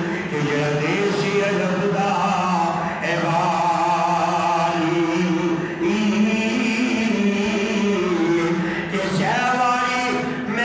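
A man's voice chanting a slow devotional recitation into a microphone, holding long notes with melodic turns and pausing briefly for breath.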